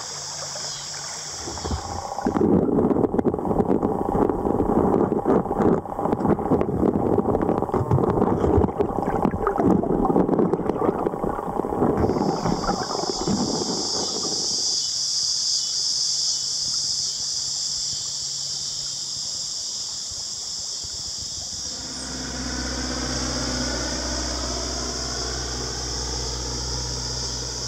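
Steady chorus of insects. About two seconds in, loud splashing and rushing water takes over for around ten seconds. Over the last several seconds a small propeller airplane passes overhead, a low steady drone.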